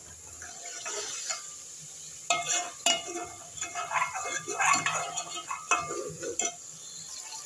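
A metal spoon stirring and scraping chicken pieces frying in masala and ghee in an aluminium degchi, starting about two seconds in, with sharp clinks against the pot at about two, three and six seconds, over a light sizzle.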